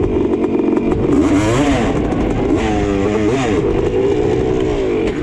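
Sport ATV engine running at part throttle, its pitch dipping and rising twice as the throttle is eased off and opened again.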